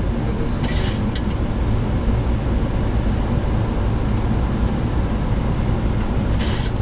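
Steady cockpit noise of a Boeing 737-800 on a low approach with landing gear down and flaps at 40: a dense low rumble of airflow and engines. Two short bursts of hiss, about a second in and near the end.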